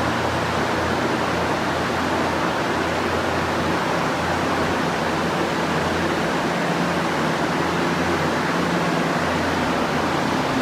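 Many air-mover fans and a large dehumidifier running together: a loud, steady rushing noise with a low hum under it, the sound of drying out a flooded building to bring the humidity down.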